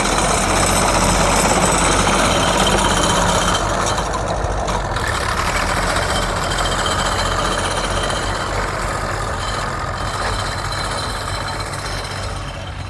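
Vintage tractor engine running close by with a steady, rapid clatter, fading slightly toward the end.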